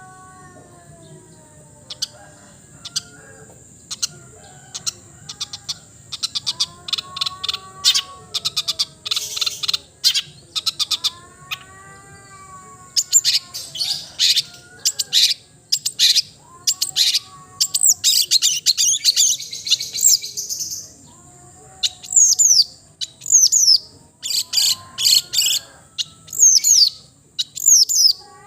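Long-tailed shrike (cendet) singing: rapid strings of sharp chattering notes and high downward-slurred whistles, starting about two seconds in and growing denser from about halfway. Softer, lower, arched whistles come and go beneath them.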